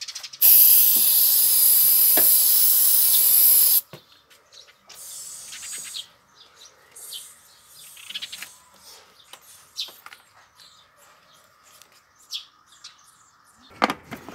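Aerosol spray can sprayed in one continuous hiss of about three and a half seconds, stopping abruptly, followed by faint clicks and handling noises.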